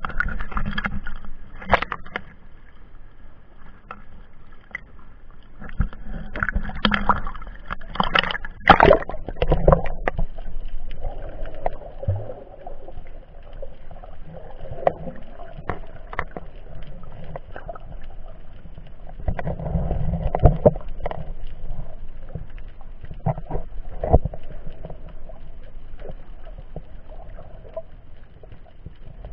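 Sea water sloshing and gurgling, heard muffled through an action camera's sealed waterproof case as it goes under the surface. Irregular sharp knocks and taps against the housing come thickest in the first ten seconds and again about two-thirds of the way through.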